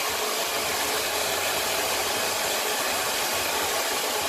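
Handheld hair dryer running steadily, an even rush of blown air.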